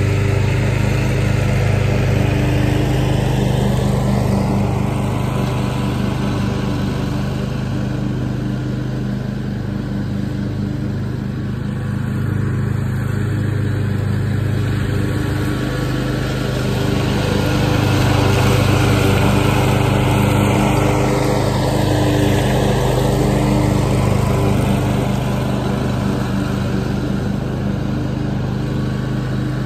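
Walk-behind lawn mower's small engine running steadily under load while cutting grass.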